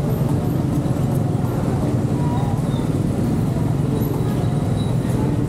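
A car being driven: steady engine and road noise.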